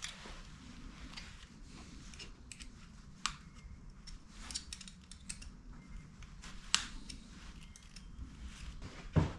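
Hand tools and small metal parts being handled during motorcycle suspension work: irregular light clicks and taps, with three sharper knocks, the loudest a dull thump near the end.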